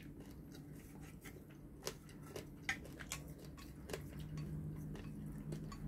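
Wooden chopsticks clicking against a ceramic bowl of spaghetti, a few faint scattered taps while noodles are picked up.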